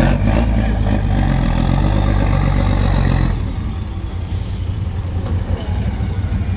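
DAC 665T 6x6 truck's diesel engine pulling hard under load. The engine note eases off a little over three seconds in, as the revs drop, and it keeps running at the lower level.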